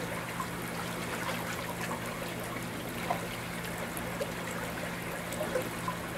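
Pond water trickling and bubbling steadily, with a low steady hum underneath.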